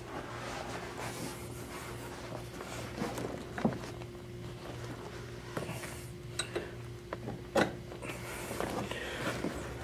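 Hands fitting the leg rest's pivot bolt and bracket under a massage chair's seat make light handling clicks and knocks of metal and plastic parts. The sharpest clicks come about three and a half, six and a half and seven and a half seconds in, over a steady low hum.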